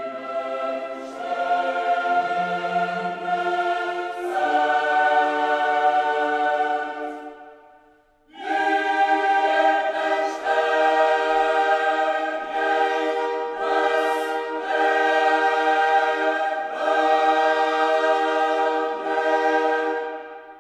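Background choral music: a choir singing long held chords, which break off for a moment about eight seconds in and then start again.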